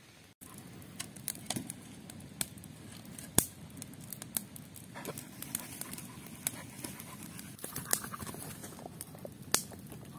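Wood campfire of dry sticks crackling, with irregular sharp pops, one louder than the rest about three and a half seconds in.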